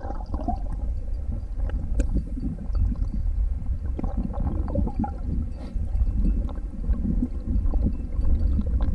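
Water gurgling and sloshing right at the microphone, with a steady deep rumble and scattered small clicks, starting abruptly.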